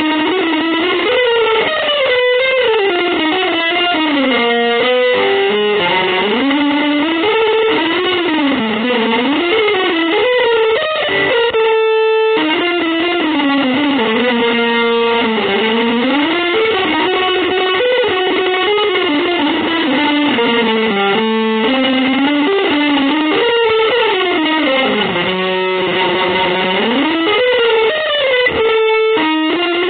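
Instrumental avant-garde jazz piece led by an effects-laden electric guitar: a continuous lead line that slides smoothly up and down in pitch, broken by a few short pauses.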